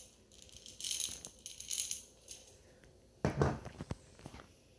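Chocolate chips rattling inside a glass jar as it is tilted, in two short bursts, followed by a louder thump a little past three seconds in.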